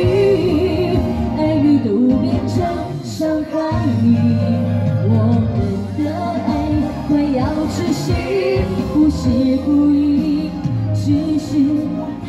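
A woman singing a slow, lyrical Mandarin pop ballad into a handheld microphone over backing music, amplified through the stage PA.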